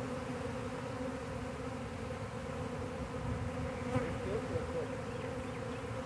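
Steady buzzing hum of a large honey bee swarm in flight, thousands of bees circling and pouring into a swarm trap's entrance as the swarm moves into its new home.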